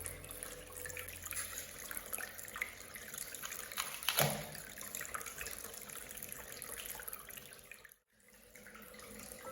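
Water trickling and splashing in a small miniature waterfall, with many small drips and one louder splash about four seconds in. The sound drops out for a moment about eight seconds in.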